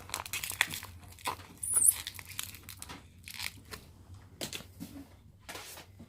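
Printer packaging crinkling and tearing in short, irregular bursts, with a brief high squeak about two seconds in.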